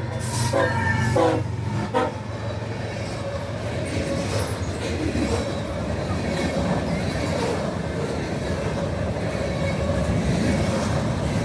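Diesel freight locomotive's horn sounding a few blasts at a grade crossing, ending about two seconds in, followed by the steady engine rumble and rolling noise of the freight train passing.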